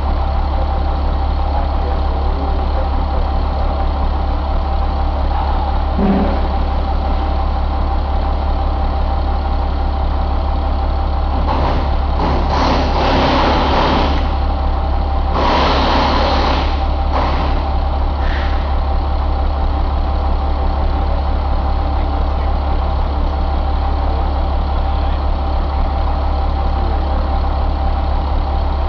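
1999 International DT466E inline-six turbodiesel idling steadily, with a few short bursts of louder noise around the middle.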